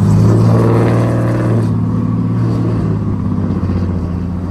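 Fifth-gen Ram 2500's 6.7-litre Cummins inline-six turbo-diesel, emissions-deleted and tuned, with a 5-inch straight-pipe exhaust, heard from inside the cab as the truck accelerates. The drone is loudest at first and rises slightly in pitch, then eases off about a second and a half in and settles to a steadier cruise.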